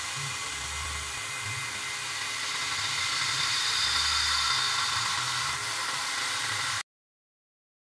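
CNC milling machine at work: the spindle runs with a steady whine while a Fog Buster air-mist coolant nozzle hisses over an end mill cutting into an aluminium pulley. The sound cuts off suddenly near the end.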